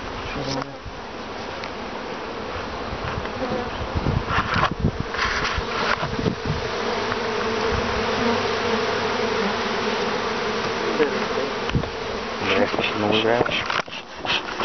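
Many honeybees buzzing around an opened hive as a dense, steady hum that swells a little in the middle. A few knocks come about five seconds in and again near the end.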